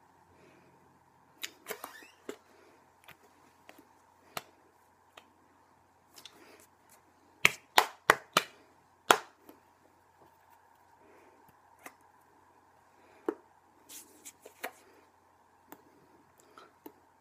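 Hands clapping and slapping against each other while signing in American Sign Language: scattered sharp slaps, with a quick run of about five loud ones midway. A faint steady hum lies underneath.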